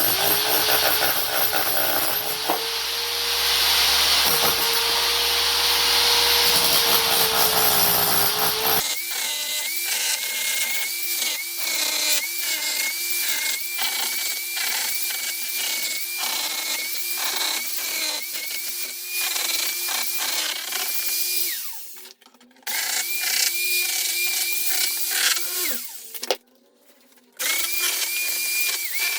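Electric stone-cutting saw with a diamond disc cutting into a marble fireplace slab: a steady motor tone under a loud grinding hiss. After about nine seconds it gives way to a higher-pitched power tool running with rapid repeated knocks, which stops briefly twice near the end.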